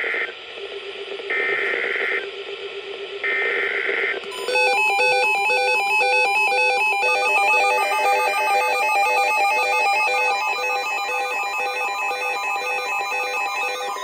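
Three bursts of warbling EAS/SAME digital data tones, each about a second long and a second apart. Then, from about four and a half seconds in, several NOAA weather alert radios sound their alarms together, a loud jumble of repeating beeps and chirps at different pitches, set off by a severe thunderstorm warning.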